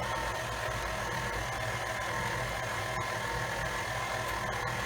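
Electric stand mixer running at a steady speed with an even hum, beating egg and flour into cake batter.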